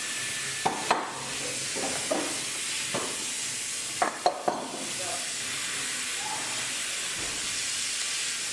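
Sharp knocks and clanks of metal bar clamps being taken off plywood set pieces and set down on a wooden workbench, several in the first half and three close together about four seconds in, over a steady hiss.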